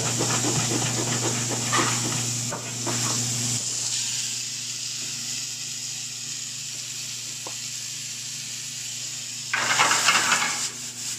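A chef's knife chopping pineapple on a plastic cutting board in quick strokes over a steady hum, for the first few seconds. Then diced pepper, onion and pineapple sizzling in a skillet over a gas burner, with a loud burst of sizzle near the end as the pan is tossed and flames flare.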